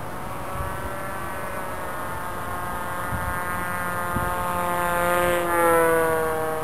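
Radio-controlled Mini Pop model aeroplane's motor whining in flight. It grows louder, and its pitch drops as it passes by about five and a half seconds in.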